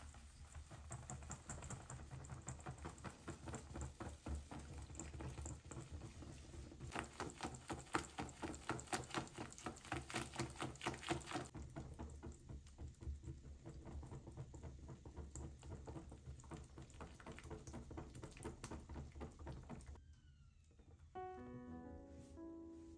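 A wire whisk beating pancake batter in a glass mixing bowl: quick, steady clicking and scraping of the wires against the glass, busiest in the middle. Near the end the whisking stops and background music with stepped, piano-like notes comes in.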